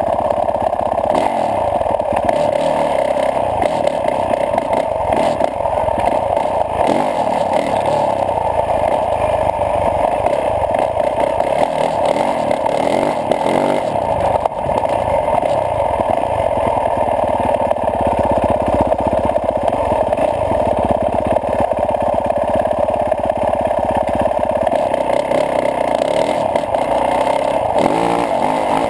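2012 Yamaha YZ450F's single-cylinder four-stroke engine running steadily while the dirt bike is ridden over a dirt track.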